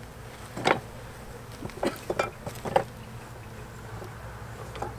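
A few sharp knocks and clicks, four in the first three seconds and a faint one near the end, as the wooden top bar hive is handled. A steady low hum runs underneath.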